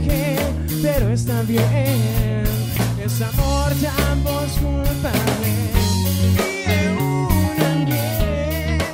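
Male vocalist singing a rock ballad, wavering on held notes, backed by a band with guitar, sustained low bass notes and drum kit, recorded live.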